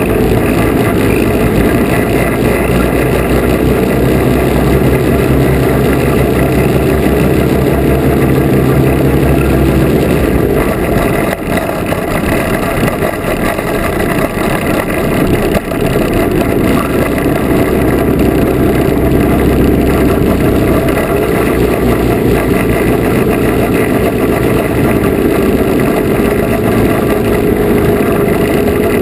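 Twin small engines of a Lazair III ultralight running steadily at low power while the aircraft taxis on the ground. The engine note changes about ten seconds in, with two brief dips in loudness soon after, and settles into a steady tone in the second half.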